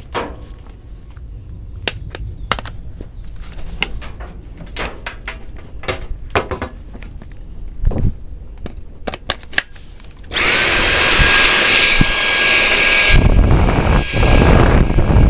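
Scattered clicks and knocks, then about ten seconds in an electric drill starts and runs steadily with a high whine. From about thirteen seconds in it sounds heavier as the bit works at a steel lock cylinder to drill it out.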